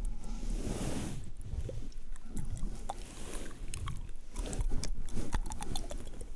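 Close-miked ASMR mouth sounds: a run of wet clicks and smacks with soft swishes between them.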